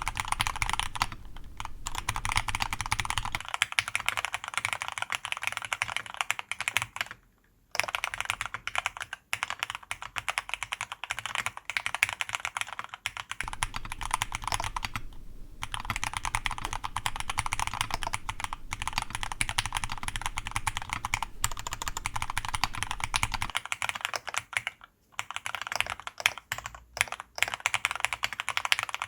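Fast, continuous typing on a TX66 aluminium custom mechanical keyboard with fully lubed Cherry MX Black (Hyperglide) linear switches and PBT keycaps: a dense run of keystroke clacks, broken by a few short pauses.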